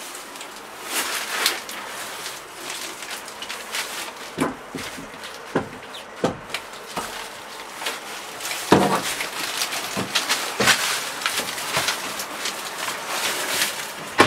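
Scattered clicks, knocks and rustling as someone moves about inside a backhoe loader's cab and handles the camera.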